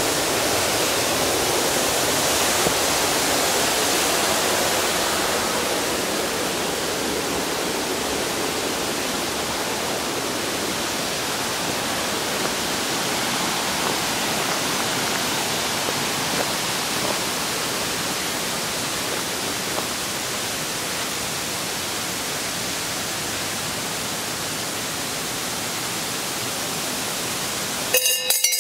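Steady rushing of a mountain stream's water over rocks, a little louder in the first few seconds. A brief jumble of clicks near the end.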